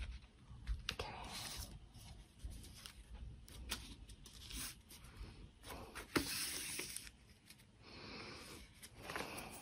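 Hands pressing down and smoothing stiff paper to set freshly glued edges, the paper rustling and sliding, with a few light taps on the cutting mat.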